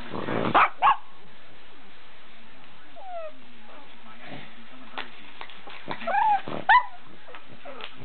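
Pug whimpering and yipping in short, high, wavering cries a few seconds apart, upset by bubble wrap being popped. About half a second in there is a loud burst of plastic bubble wrap crinkling and popping.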